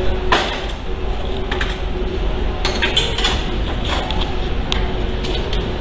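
A steady low rumble with a constant hum underneath, broken by a handful of sharp metallic clinks and knocks. The loudest clink comes about a third of a second in, and a cluster follows around the middle.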